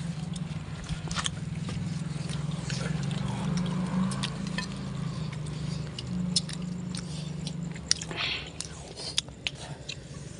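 People eating with their hands from banana leaves: scattered short clicks and smacks of chewing and handling the leaf-wrapped food, over a steady low hum that weakens about eight seconds in.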